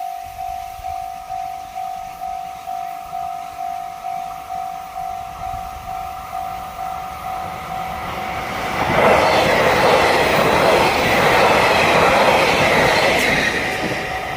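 Japanese level-crossing warning bell ringing in even strikes, about two and a half a second. About nine seconds in, a limited express train reaches the crossing and passes loudly, its running noise drowning the bell.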